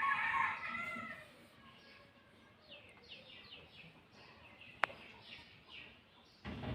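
A domestic cat meows once, for about a second, at the start. This is followed by faint, short, high chirps and a single sharp click near the end.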